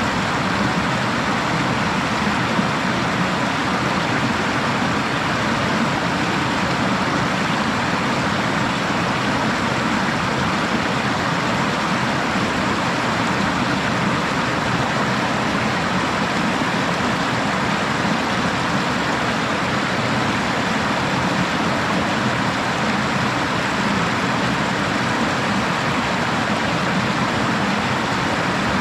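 Yakumo Falls, a waterfall, rushing steadily: falling water as an even, unbroken noise that neither swells nor fades.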